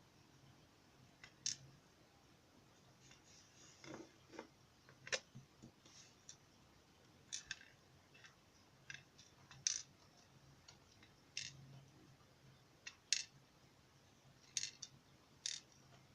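Scattered small, sharp metal clicks and taps, irregularly spaced with gaps of up to a second or two: the brass pins of a gutted padlock and small tools being handled and set down.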